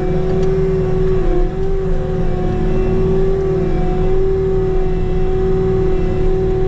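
Bobcat T66 compact track loader's diesel engine and hydraulics running steadily under load, with a low rumble and a constant whine.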